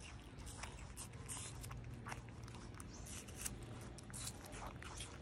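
Baby macaques chewing banana pieces: faint, irregular wet smacks and clicks of mouths eating, over a low steady hum.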